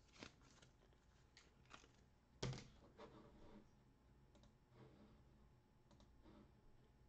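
Faint, scattered clicks and taps of small objects being handled, with one sharper, louder knock about two and a half seconds in.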